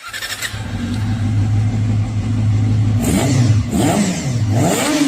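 Motorcycle engine idling steadily, then blipped three times in the last two seconds, its pitch rising and falling with each rev.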